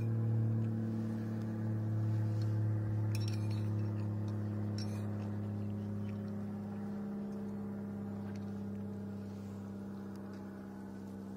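A steady low hum with overtones, slowly fading, over which a metal fork clinks faintly against a china plate twice, about three and five seconds in.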